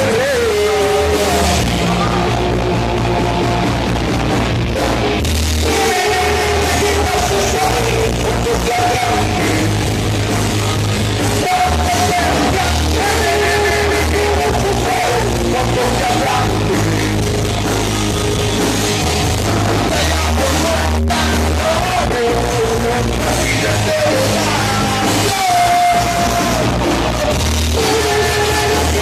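Rock band playing live through a PA sound system, a singer's vocal line over a steady, loud full band.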